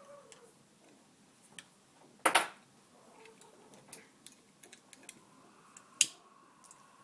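Two sharp clicks, a doubled one about two seconds in and a single one near the end, with faint scattered ticks between.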